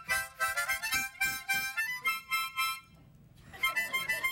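Two harmonicas played together in a run of short repeated chords. They break off for a moment about three seconds in, then start again.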